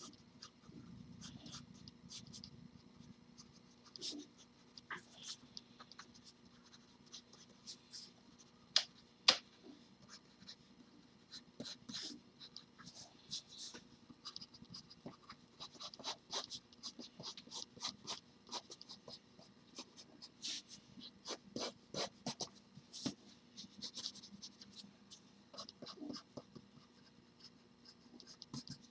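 Pencil sketching on drawing paper: short scratchy strokes in irregular flurries, over a faint steady low hum. Two sharper ticks stand out about nine seconds in.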